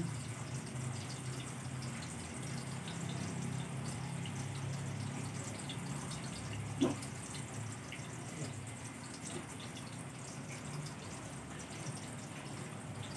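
Water running steadily from a garden hose, with one short sharp sound about seven seconds in.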